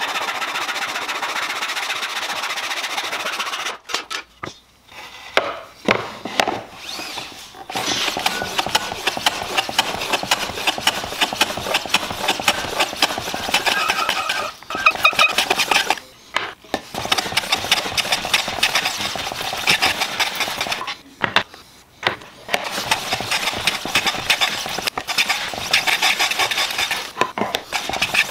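Hand woodworking on a shooting board. A backsaw cuts for the first few seconds, then a hand plane runs on its side along the shooting board, shaving the edge of a board in fast, repeated back-and-forth strokes with a few short pauses.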